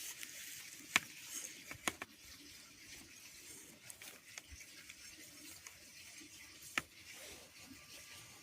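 Hands rummaging through damp potting soil in a grow container, a faint soft rustling broken by three sharp little clicks, about one and two seconds in and again near the end.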